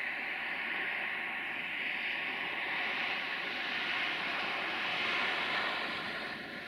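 A multirotor camera drone's propellers whirring steadily, a hissy buzz with a faint steady hum in it.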